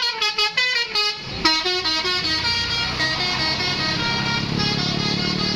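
Bus telolet horn, a set of several electric air-horn trumpets, playing a quick run of short notes. From about a second and a half in it changes to long held chords of several tones that shift slowly, over the low running of a bus engine.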